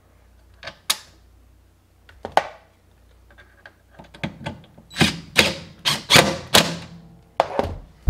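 DeWalt 20V Max cordless impact driver fastening the plastic belt cover on a washing machine: several short bursts of hammering from about four seconds in. A few plastic clicks and knocks come first as the cover is set in place.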